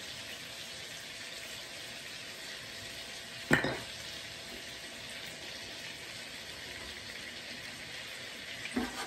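Honey garlic sauce and chicken sizzling steadily in a skillet. One sharp knock comes about three and a half seconds in, and a wire whisk starts clinking in the pan near the end.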